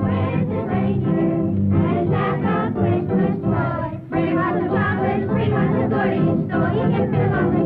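Music: a choir singing, with a brief break about four seconds in.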